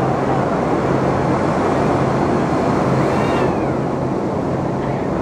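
Steady loud cabin noise of a parabolic-flight jet in flight: engine and airflow noise with a low hum underneath. A faint high rising-and-falling sound comes through about three seconds in.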